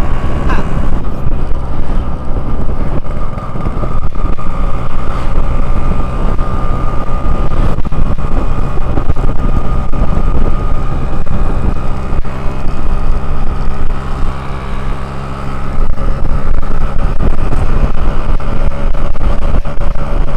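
Yamaha RX-King two-stroke single-cylinder engine running under way, steady and loud, easing off briefly about 14 seconds in before pulling again.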